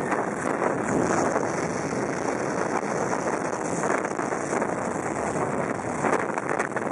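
Jet blast from an airliner's engines at takeoff power: a steady rushing wind with heavy wind noise on the microphone and blown sand.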